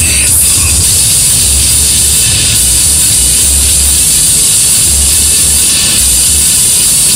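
Electronic music with a heavy bass line that changes notes every second or so, under a steady loud hiss.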